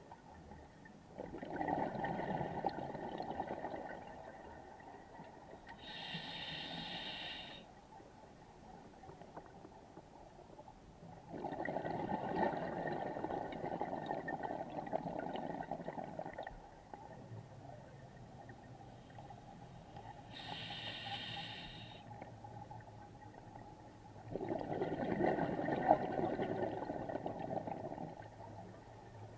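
Scuba regulator breathing underwater, slow and even: three long bubbling exhalations, each several seconds of crackling bubbles, alternating with two short hissing inhalations through the demand valve.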